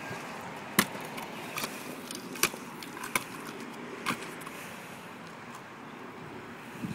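Kick scooter dropping off a few concrete steps and landing with a sharp clack about a second in, the loudest of several knocks. A few more clacks follow as it rolls on over the concrete.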